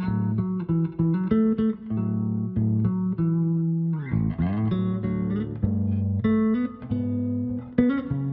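Solo electric bass played fingerstyle, plucking melody notes over low bass notes with several strings sounding at once. About four seconds in, a brief smeared flourish with notes gliding up and down in pitch.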